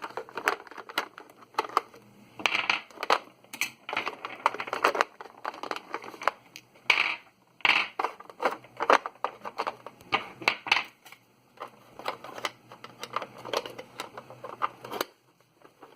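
Batteries being taken out of a Brother P-Touch 2400 label printer: plastic clicks and knocks from the battery compartment, with batteries clacking and rattling as they are pulled out. The noises come in an irregular run and stop about a second before the end.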